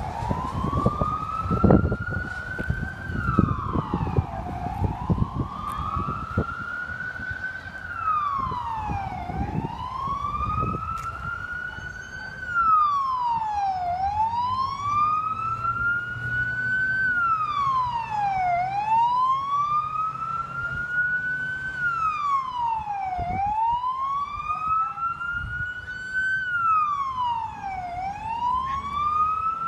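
A siren wailing: its pitch climbs slowly, then drops more quickly, over and over about every four and a half seconds. Low vehicle engine rumble and knocks sound under it during roughly the first third.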